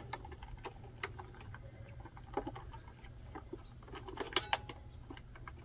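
Small clicks, taps and rustles of wires and a screwdriver being handled in the plastic wiring compartment of a Magnum inverter, with a cluster of sharper clicks about four seconds in, over a steady low hum.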